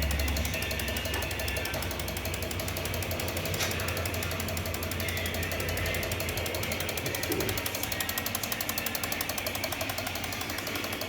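Corsa 1.6 MPFI four-cylinder engine running at a steady idle with a rapid, even ticking.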